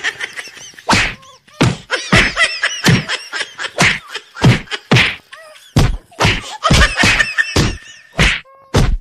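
A rapid series of punch and slap thuds, about two a second, as a boy is beaten in a mock fight. The blows sound like added fight sound effects.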